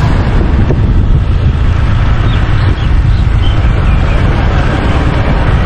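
Motor scooter riding along a road: steady roar of wind buffeting the microphone, with the scooter's engine and tyre noise underneath.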